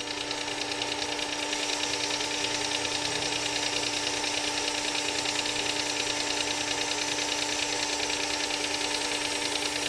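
Work Sharp 3000 sharpener's electric motor running steadily, driving the belt sharpening attachment with a 6,000-grit belt. It comes up to full level over the first couple of seconds, then holds a steady hum with a fine, rapid flutter.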